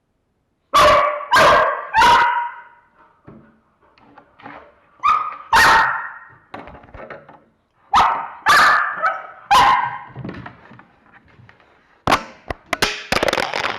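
Dog barking in short runs of loud barks: three in quick succession about a second in, two more around five seconds, and four between about eight and ten seconds. Near the end there are several sharp knocks or clicks.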